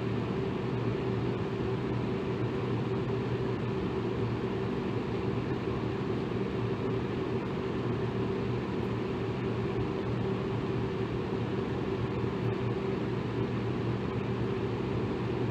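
Electric fan running steadily: an even whoosh of moving air with a low motor hum under it.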